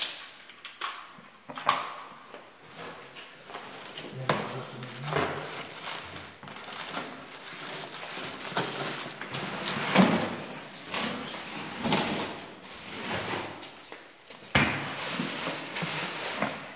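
Plastic wrapping and bags crinkling and rustling, with cardboard box flaps scraping and several knocks, as a vacuum cleaner and its accessories are handled out of their packaging. The loudest knocks fall about ten seconds in and near the end.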